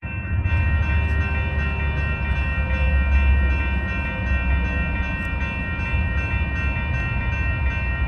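Rail equipment running out of sight: a steady low rumble under a set of steady whining tones.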